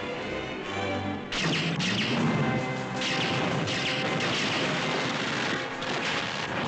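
Film score music that gives way suddenly, about a second in, to a dense mix of battle sound effects: explosions and gunfire.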